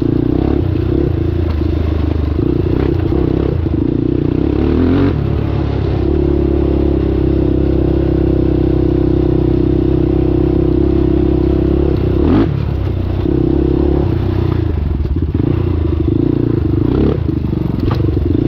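Honda 400EX quad's single-cylinder four-stroke engine running under way while riding, its pitch briefly shifting about five, twelve and seventeen seconds in as the revs change.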